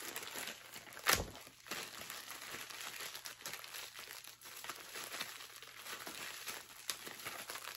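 Plastic packaging crinkling and rustling as a Funko Soda figure is unwrapped from its can, with one sharp click about a second in.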